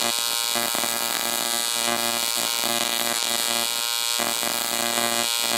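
AC TIG welding arc on aluminium: a steady buzz, with a lower pulsing tone that comes and goes roughly once a second.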